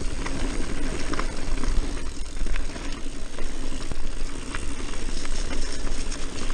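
Mountain bike riding fast down dirt singletrack: tyres rolling over the dirt and the bike rattling, with scattered sharp clicks, all under a steady wind rumble on the microphone.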